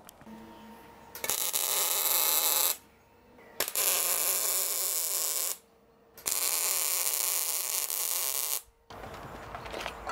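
Electric arc welding: three bursts of crackling hiss, each about two seconds long and each stopping abruptly.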